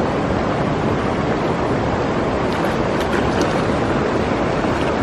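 Shallow, muddy stream water rushing steadily, with a few faint splashes about halfway through as hands search the water.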